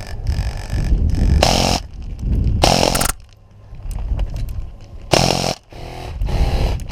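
Airsoft rifle with a DSG gearbox fired on full auto in four short bursts, each about half a second long, buzzing at a very high rate of fire.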